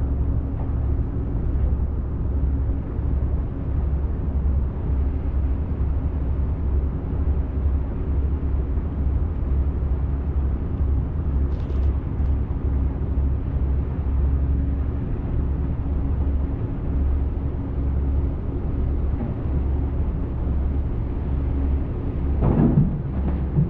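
Steady low engine hum with constant underlying tones, as of a passenger ferry's engine running under way. A brief louder sound rises and falls near the end.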